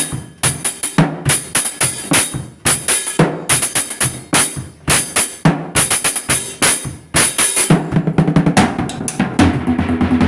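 Drum kit played fast, with dense snare and bass-drum hits under ringing cymbals; near the end, held low notes join the drumming.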